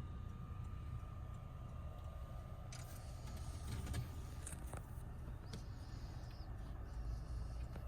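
Steady low rumble of a car in motion, with a faint steady high tone. A few light clicks and rustles come in the middle.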